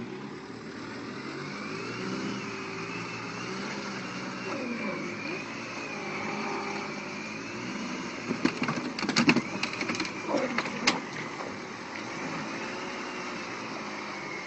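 Car engines running and revving under load as a car stuck deep in mud is dragged out by another car, the pitch rising and falling with the throttle. About halfway through, a burst of sharp knocks and cracks is the loudest sound.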